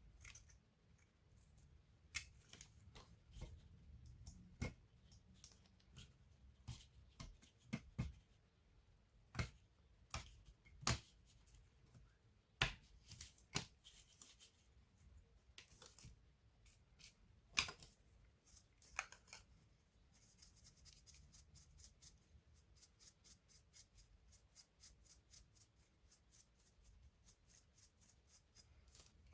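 Faint clicks and taps of small plastic and metal laptop parts and tools being handled during disassembly, then, about two-thirds of the way through, a quick run of light ticks, about three a second.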